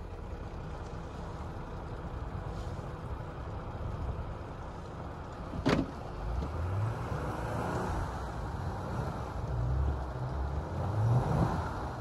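Jeep Gladiator Rubicon's engine revving up several times in the second half as it spins its tyres in deep snow, trying to drive out of being stuck. There is a sharp click a little before the middle.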